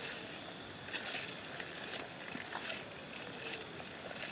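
Forest insects chirping steadily at a high pitch, with irregular footsteps on the damp forest floor about once a second.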